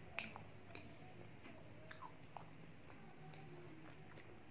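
Close-miked mouth sounds of chewing soft dahi bhalla, lentil dumplings in yogurt: faint wet smacks and scattered small clicks. A faint steady low hum lies underneath.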